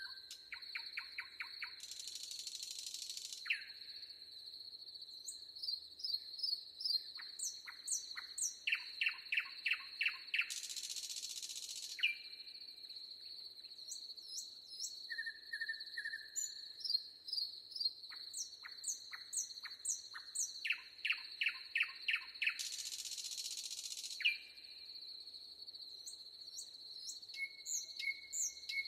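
Birds chirping in quick series of short notes over a steady high insect drone, with three brief rushes of hiss.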